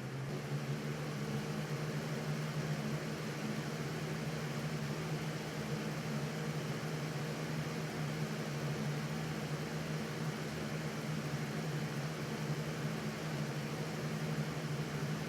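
Electric box fan running steadily: a low motor hum under an even rush of air, stepping up a little in level right at the start.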